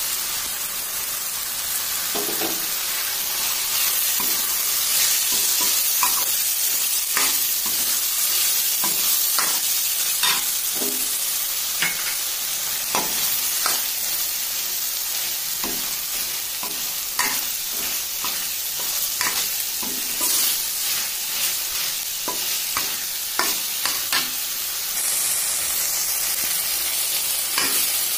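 Soaked soya chunks frying in oil and masala in a stainless-steel pan, with a steady sizzle. A steel spatula stirs them, scraping and clinking against the pan at irregular moments.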